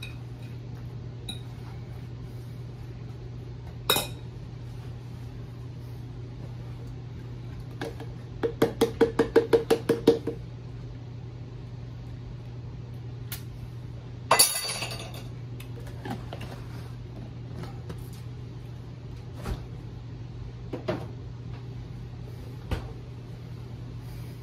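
Spoon mixing tuna salad in a bowl, with a quick run of about ten even clinks of the spoon against the bowl midway and a clatter a few seconds later, then scattered light knocks of kitchen things being handled. A steady low hum runs underneath.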